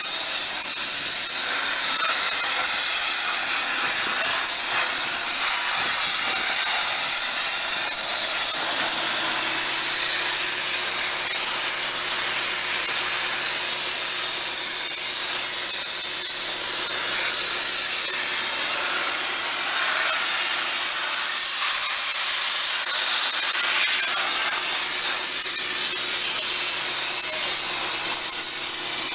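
Abrasive blast nozzle hissing steadily as compressed air and grit strip paint from a car body, fed by a towable diesel air compressor. A steady low hum joins about nine seconds in.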